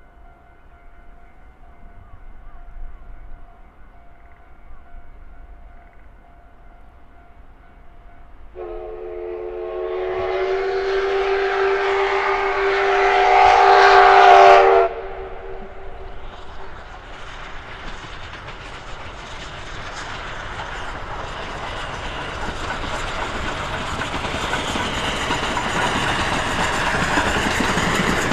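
JNR Class D51 steam locomotive whistle blowing one long blast about a third of the way in, growing louder and then cutting off sharply. After it, the train's running noise builds steadily as it approaches.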